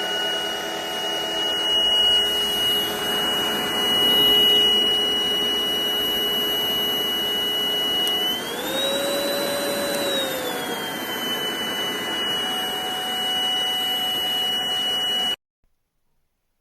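Stanew cordless vacuum cleaner's motor running with a steady high whine. Its pitch rises for about two seconds midway, then settles back. It stops suddenly near the end.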